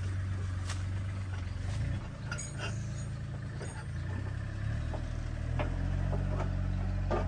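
A vehicle engine idling steadily as a low drone, its pitch shifting slightly a few times, while a few light clicks and knocks come from a tow strap being hooked to the front of the car.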